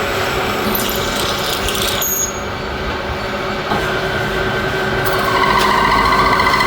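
A lathe running with steady mechanical noise. About five seconds in, a louder high whine joins it.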